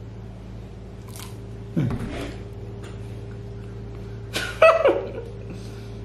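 A man gulps water from a plastic bottle about two seconds in. Past four seconds comes a short muffled hum through closed lips with his mouth full of water, falling in pitch; it is the loudest sound. A steady low hum runs underneath.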